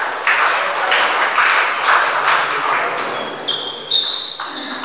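Spectators in a sports hall clapping and calling out after a table tennis point, a dense patter of hand claps that thins out after about three seconds. A few short high squeaks of sports shoes on the court floor come near the end.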